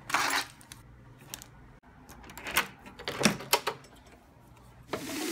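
A scatter of sharp clicks, rattles and knocks as a handheld camera is handled and a door is opened. Near the end electronic music starts with a rising whine.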